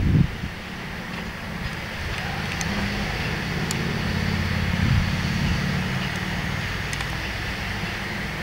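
A vehicle engine running with a steady low hum, growing a little louder toward the middle and easing off after, with a few faint clicks over it.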